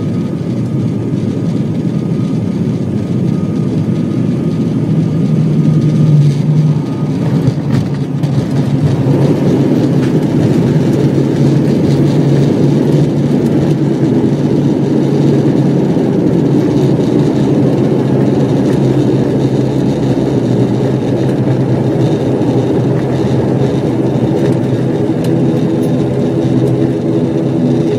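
Cabin noise of a high-wing turboprop airliner rolling along the runway after touchdown: a steady engine and propeller drone over runway rumble, growing louder about nine seconds in.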